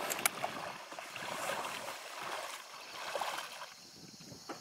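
Marsh water swishing and sloshing around a person's waders as they wade through knee-deep water, swelling with the strides and fading out near the end.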